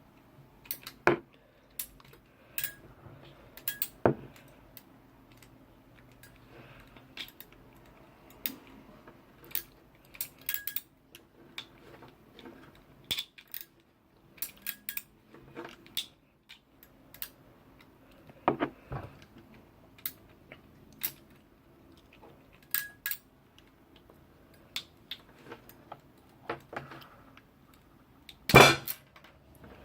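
Scattered sharp clicks and metal clinks from a hand tool at irregular intervals as the outer jacket of a Cat5 cable is stripped, with one loud clack near the end.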